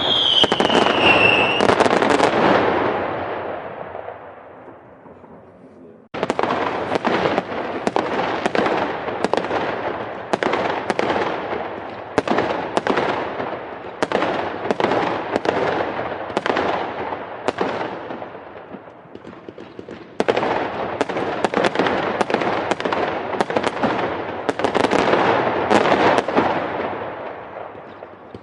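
Fireworks going off in rapid crackling volleys of pops and bangs, with a falling whistle near the start. The crackle dies away over the first few seconds, then cuts in abruptly at full strength about six seconds in and again about twenty seconds in.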